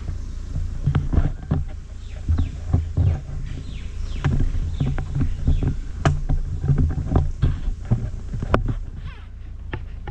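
Open-top Moke car on the move: a low wind rumble on the roof-mounted camera's microphone, with many irregular knocks and rattles.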